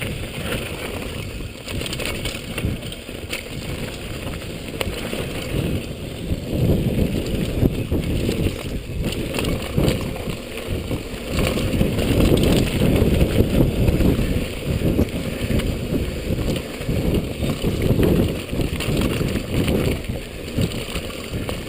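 Downhill mountain bike riding: tyres rumbling over a rough dirt trail with the bike rattling and knocking, and wind on the microphone, the noise surging and easing.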